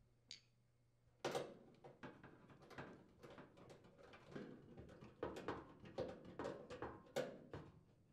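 Nut driver turning a screw into the sheet-metal bracket that holds a gas dryer's inlet pipe: faint, irregular clicks and light metal knocks from about a second in until near the end.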